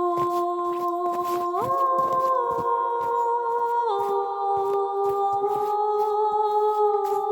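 A cappella choir humming held chords that step to new notes every few seconds. Short knocks repeat underneath.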